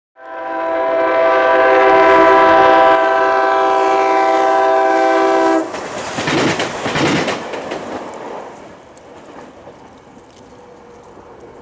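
SEPTA Silverliner V electric railcar's Nathan K3LA three-chime horn sounding one long, loud blast of about five and a half seconds that cuts off suddenly. The noise of the railcar going by follows, then fades away.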